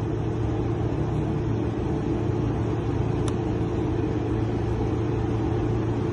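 Steady low rumble of an idling vehicle engine, with one faint click about three seconds in.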